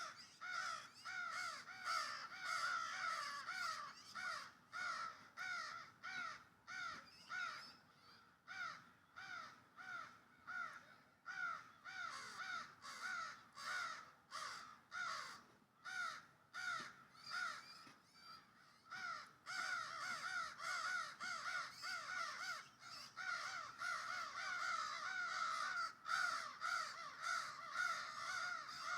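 A baby bird calling over and over, short downward-slurred cries at about two to three a second. The calls grow fainter for a stretch in the middle, then come back louder about two-thirds of the way in.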